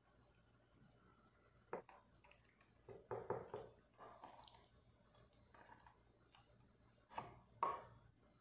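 Quiet kitchen handling sounds of raw chicken breast fillets, a fork and a ceramic plate on a wooden cutting board. There is a sharp click just under two seconds in, a cluster of soft knocks and wet slaps around three seconds, a few smaller taps, and two louder knocks near the end.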